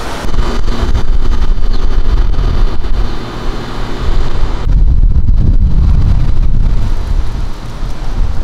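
Wind buffeting the microphone: a loud, gusting low rumble that eases briefly about four seconds in and again near the end.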